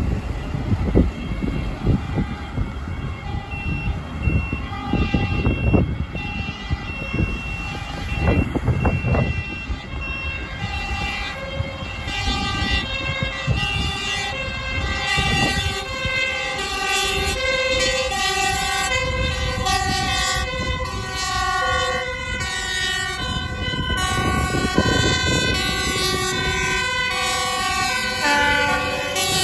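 Dutch fire engine's two-tone siren approaching, switching back and forth between a high and a low note and growing louder as it comes closer.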